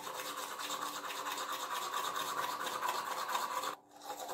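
Manual toothbrush scrubbing teeth in quick back-and-forth strokes, with a short break a little under four seconds in.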